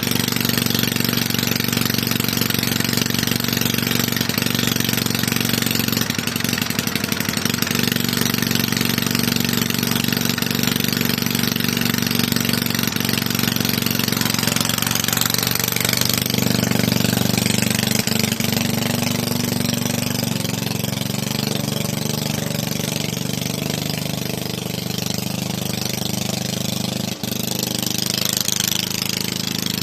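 Toro lawn mower's small single-cylinder engine running steadily, just reassembled with a cleaned and repaired carburetor and running on two-stroke fuel mix. It is really loud, and the owner feels it needs a little adjustment.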